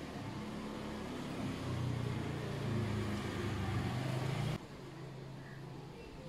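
Low, steady engine hum, a little louder from about a second and a half in, that drops off suddenly about four and a half seconds in to a fainter hum.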